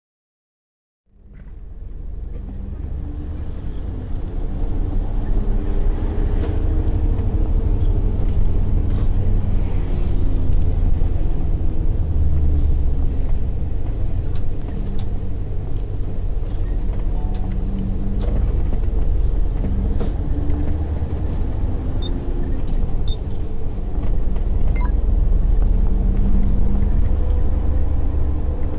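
Steady low rumble of a car's engine and tyres while driving, fading in about a second in.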